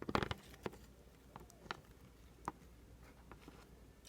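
Light handling clicks and taps from utensils and containers: a quick cluster at the start, then a few single ticks spread apart.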